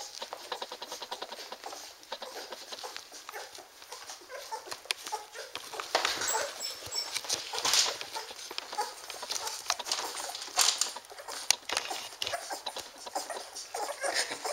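Standard poodle puppies nursing from their mother: a dense, uneven run of small wet suckling clicks and smacks, with occasional high squeaks.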